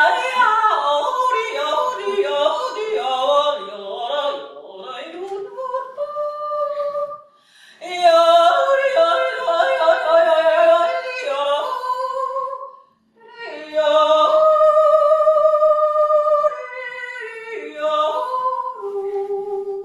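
A woman's voice singing without accompaniment, wordless, with quick leaps between notes and long held notes. The singing breaks off briefly twice.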